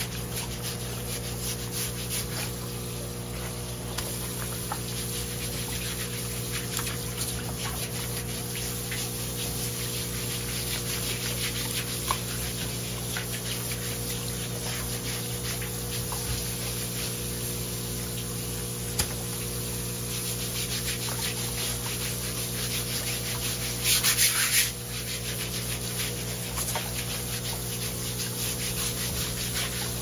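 A stiff hand scrub brush scrubbing back and forth over the skin of a large olive flounder under running tap water, a continual rapid scratching over a steady low hum. Near the end there is a brief, louder rushing sound lasting about a second.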